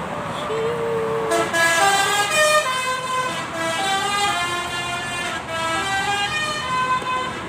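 A bus's basuri telolet horn playing a quick tune: a held note about half a second in, then a run of short stepped notes rising and falling in pitch.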